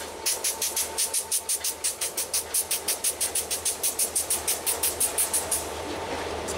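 Freight train with a rapid, even clicking about five or six times a second that stops abruptly near the end, after which a steady rumble from the train grows louder.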